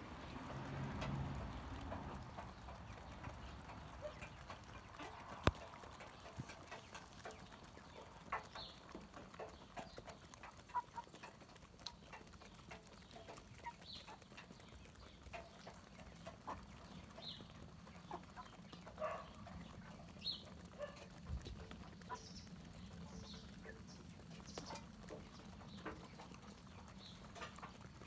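A flock of hens feeding on scattered grain, with soft clucking and irregular short ticks from pecking at the ground.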